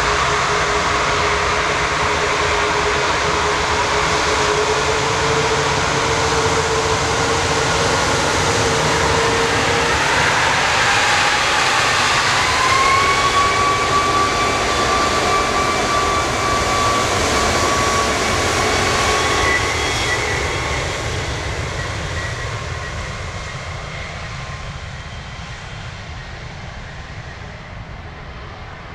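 Airbus A340-600's four Rolls-Royce Trent 500 turbofans spooling up to takeoff thrust, with a rising whine about ten seconds in. The engines run loud as the jet rolls past, then fade steadily as it moves away down the runway.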